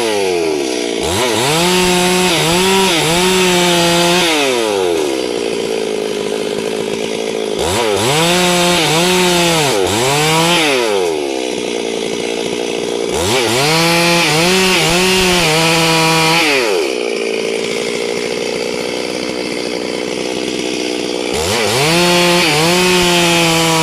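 Stihl chainsaw revved up to full throttle four times, its pitch dipping slightly under load as it cuts wood, dropping back to idle between cuts.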